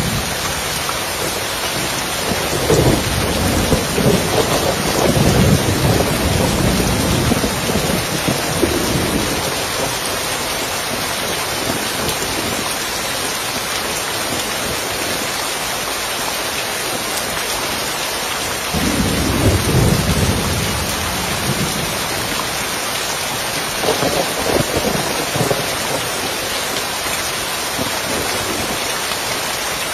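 Steady rain falling on a roof, with rolls of thunder rumbling through it: a long roll starting a couple of seconds in and lasting about eight seconds, then two shorter rumbles near twenty and twenty-five seconds.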